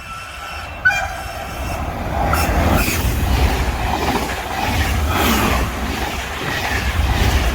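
Train running past, its noise building over the first two seconds and then holding steady, with a sharp click about a second in.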